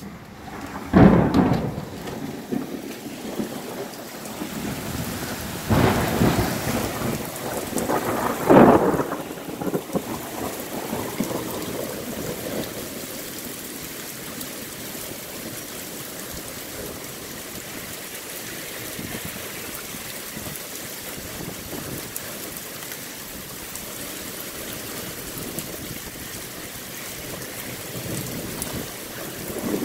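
Heavy thunderstorm rain falling steadily, broken by loud sudden claps of thunder about a second in and again around six and eight and a half seconds, each fading off in a short rumble.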